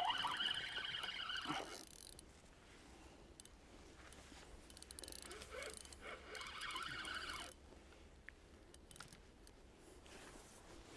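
Spinning reel whirring in two short spells, in the first two seconds and again from about five to seven and a half seconds in, with small clicks between, as a hooked pike is played on the rod.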